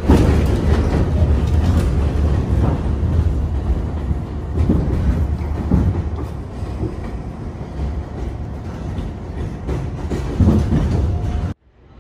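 New York City Subway L train running on the rails: a steady low rumble of wheels on track with scattered clacks over the rail joints. It begins abruptly and cuts off suddenly shortly before the end.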